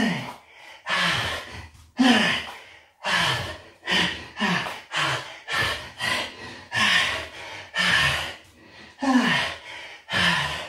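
A man breathing hard from exertion during push-up squats: short, forceful exhales and gasps, some with a slight voiced grunt, coming a little over once a second.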